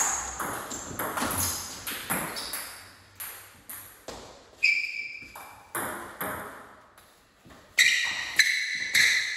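Table tennis ball in a rally: quick sharp clicks off the paddles and table, a few tenths of a second apart. After about four seconds the rally ends and slower, louder single bounces of the ball follow, each with a short ringing ping.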